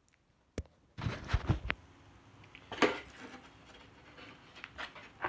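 Knocks and bumps of a phone being handled and set down on a hard surface: a cluster of bumps about a second in, a sharper knock near three seconds, then a few small clicks.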